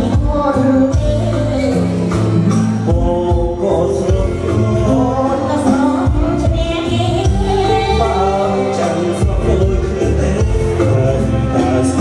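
Live Cambodian duet: a woman and a man singing into microphones over amplified band accompaniment.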